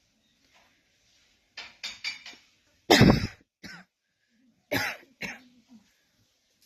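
A person coughing repeatedly: a quick run of three short coughs about a second and a half in, the loudest cough about three seconds in, then several more spaced apart.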